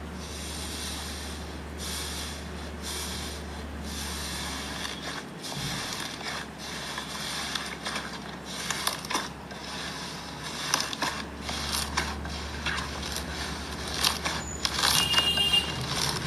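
Slime being squished and stretched by hand: a run of fine crackles and sticky clicks that gets denser and louder in the second half, over a steady low hum.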